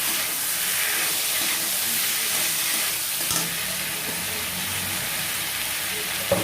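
Masala sizzling and frying in a pan as fried pointed gourd (parwal) and potatoes are stirred into it, a steady hiss. There is a sharp knock about three seconds in and another near the end.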